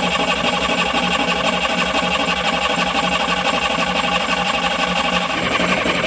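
Small marine diesel engine turning over steadily on its starter motor with a regular chugging pulse, cranking without catching while air is still being bled from its fuel system.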